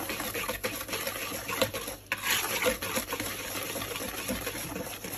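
Wire balloon whisk mixing dry flour, sugar and baking powder in a bowl: a quick, rhythmic scraping and ticking of the wires against the bowl, with a brief pause about two seconds in.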